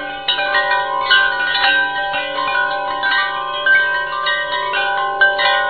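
Wind chimes ringing: many overlapping bell-like notes struck one after another, each ringing on as new ones sound.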